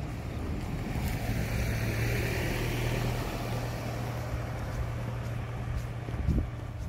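Ford Ranger pickup truck driving past and on ahead, its engine and tyre noise swelling over the first few seconds and then easing off, over a steady low engine hum. A short thump near the end.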